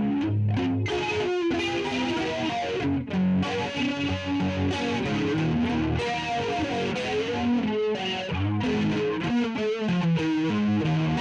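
Electric guitar with P90 pickups played through a Donner Jet Convolution flanger pedal: a run of single notes with a sweeping flanger whoosh moving across them.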